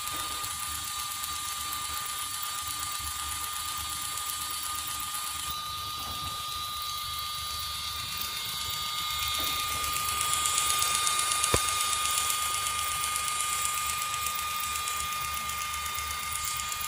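Small motor of a miniature model tractor running steadily with a high whine as it drives a homemade fodder cutter through its driveshaft. It grows a little louder from about ten seconds in, with a single sharp click a little later.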